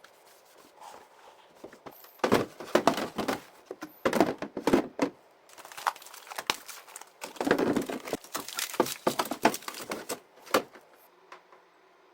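Rustling and crinkling with light knocks as things are handled, in three bursts with pauses between them and a single knock near the end.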